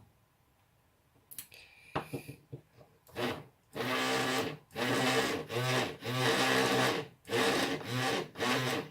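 A hand file rasping back and forth on a part of the electric shaver, about six strokes with short pauses, after a couple of small clicks.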